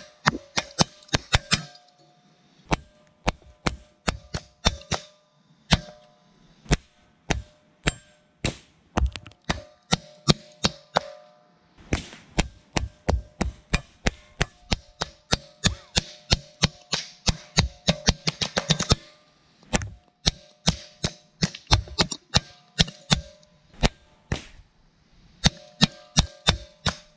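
Rapid .22 LR rifle fire from a Ruger 10/22 with a binary trigger, which fires on both pull and release: sharp cracks in irregular strings, with a fast run of about six shots a second in the middle. Music plays underneath.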